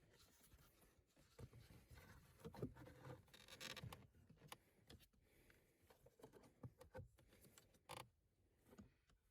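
Faint handling noises during a car cabin air filter change: scraping, rustling and small clicks, with a sharper click about eight seconds in.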